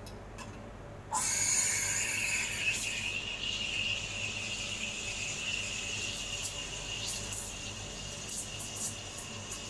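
Espresso machine steam wand steaming oat milk in a stainless pitcher: a sudden steady hiss starts about a second in, with a high whistling squeal through it, and a few short crackles in the second half.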